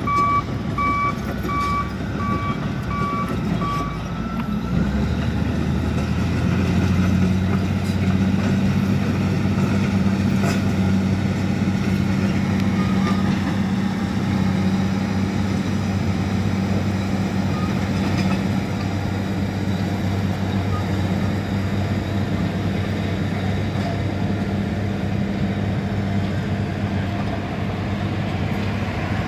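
Large crawler bulldozer: its backup alarm beeps for about the first four seconds, then its diesel engine runs steadily and louder under load as the machine pushes up onto a dirt stockpile.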